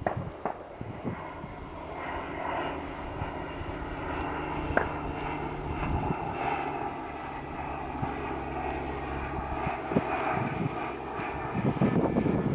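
Steady engine drone with a humming tone, building over the first two seconds and then holding. A few sharp knocks are scattered through it, and louder rough thumps come near the end.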